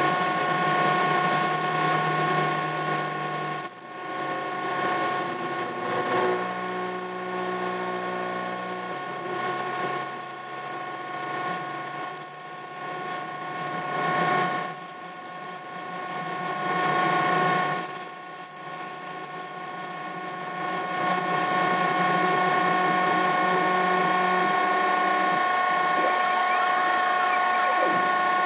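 A Denford ORAC CNC lathe, with its spindle running, cuts a radius end on a 6082-T6 aluminium bar. The stepper motors driving the tool give a steady high whine of several tones, with some growling. About three-quarters of the way through, the highest whine stops and the sound evens out, then it cuts off at the very end.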